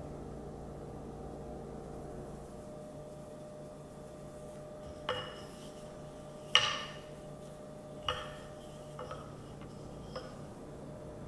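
Wooden rolling pin knocking and rolling on a granite pastry board while flour tortilla dough is rolled out: about five sharp, briefly ringing clacks, the loudest near the middle, over a steady low hum.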